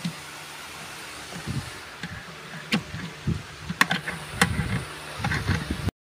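Hand tools on a jacuzzi blower motor's metal head: sharp clicks and scraping rattles of pliers and a screwdriver prying at the end cap while it is taken apart to reach the carbon brushes. Three louder clicks come about a second apart in the middle, and the sound cuts out abruptly just before the end.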